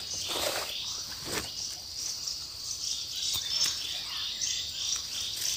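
Leafy plants rustling and snapping as they are picked by hand, heard a few times. Behind them, a high chirping call repeats about three times a second.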